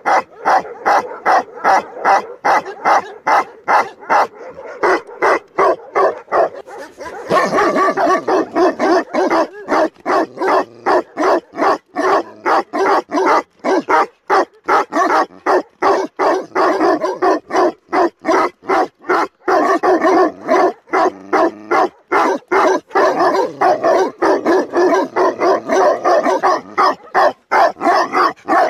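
Tibetan Mastiffs barking: an unbroken run of quick, repeated barks, growing louder and denser about seven seconds in.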